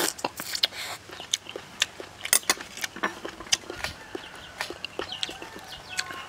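A person slurping noodles into the mouth, then chewing with wet mouth clicks and lip smacks coming irregularly, several a second.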